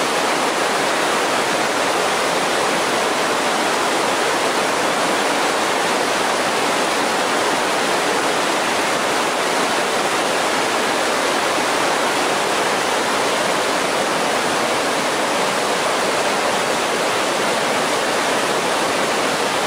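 Mountain creek rushing and splashing over boulders in a steady whitewater roar.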